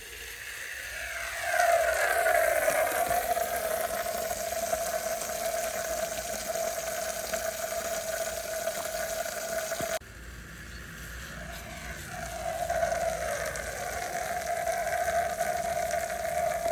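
Water rocket sprinkler toy on a garden hose spraying water: a steady rushing hiss with a steady mid-pitched whine, building up over the first two seconds. It cuts off abruptly about ten seconds in, then builds up again.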